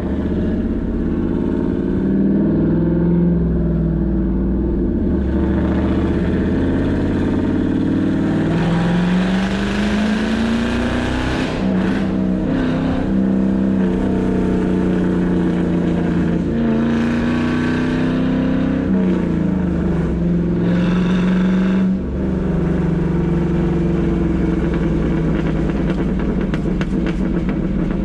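Ford Mustang engine running rough with a bad misfire, read by the car as cylinders 2 and 6, as it accelerates. Its pitch climbs and drops back several times.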